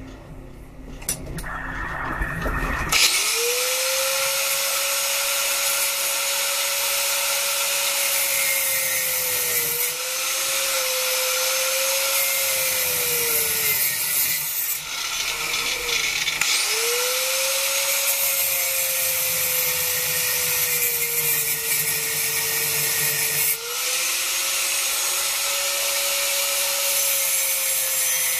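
Corded angle grinder switched on and spinning up, then grinding metal from about three seconds in: a steady hiss of the disc on metal over the motor's whine, which drops in pitch and comes back up several times as the disc is pressed harder and eased off.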